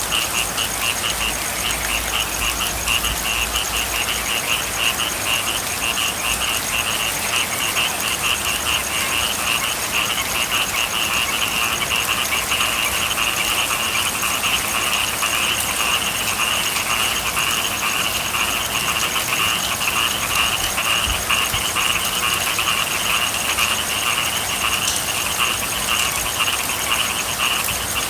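A chorus of frogs calling continuously in rapid, high-pitched pulsing trills, over the steady hiss of rain.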